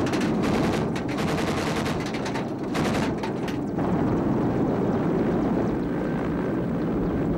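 Machine gun firing rapid bursts, heard from inside an armored vehicle, for about the first three and a half seconds; the shots stop and a steady low engine rumble carries on.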